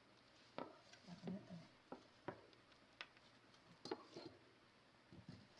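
Near silence with a few faint, scattered clicks and soft taps, like small handling noises.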